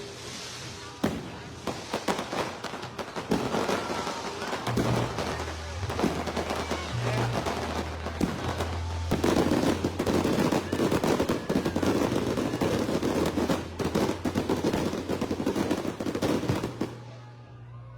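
Fireworks display: a rapid series of bangs and crackles, thickening into a dense crackling barrage partway through before dying away near the end.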